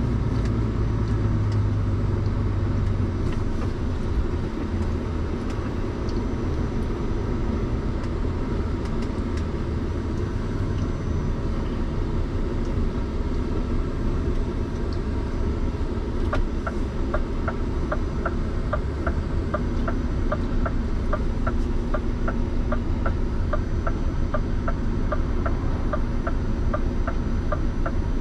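Scania truck's diesel engine and road noise heard from inside the cab while driving, a steady low rumble. A little past halfway a regular ticking starts, about twice a second.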